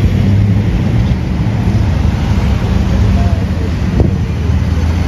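Vehicle engines idling nearby with a steady low hum, and wind buffeting the microphone.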